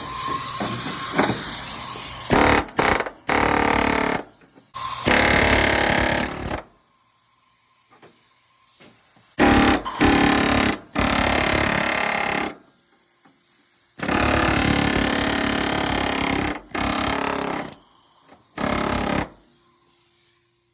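A handheld power tool run in repeated short bursts, each lasting one to three seconds and cutting off abruptly, as it cuts into the rusted sheet metal of a car's windshield channel.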